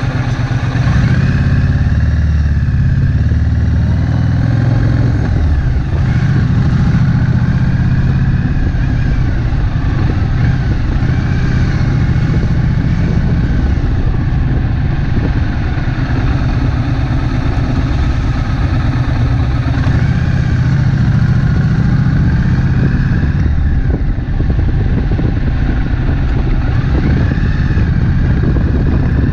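Triumph Bonneville Street Twin's 900 cc parallel-twin engine running under way at low road speed, its revs rising and falling, heard from on the bike.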